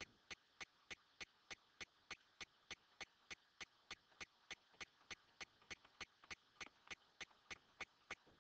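Faint, steady ticking: evenly spaced clicks, about three and a half a second.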